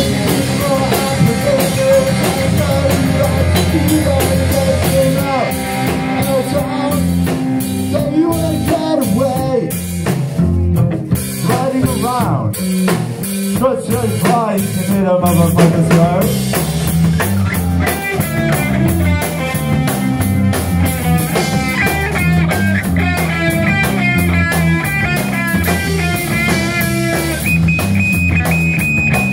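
Live rock band playing electric guitars over a drum kit, with a repeating high riff in the second half.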